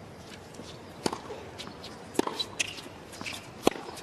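Tennis rally on a hard court: a racket strikes the ball three times with sharp pops, first the serve about a second in, then two returns, over a steady low crowd hush.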